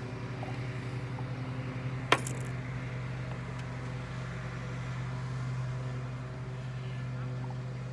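A steady low hum, with one sharp clink about two seconds in.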